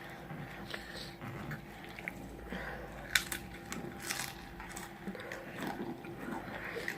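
Close-up biting and chewing of crispy fried food, with crackling crunches between quieter chewing; the sharpest crunches come about three and four seconds in. A faint steady hum runs underneath.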